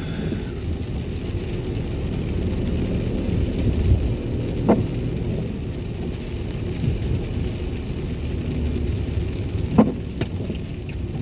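Car cabin noise while driving on a wet road: a steady low rumble of tyres and engine with the hiss of rain. Near the end, a couple of short sharp sounds come as the windscreen wiper sweeps.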